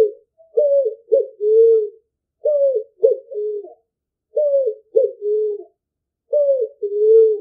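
Picazuro pigeon (asa-branca) cooing: a repeated three-note phrase, a falling first note, a short second note and a longer low third note, sung four times about two seconds apart. It is a recorded song of the kind used as a hunting call.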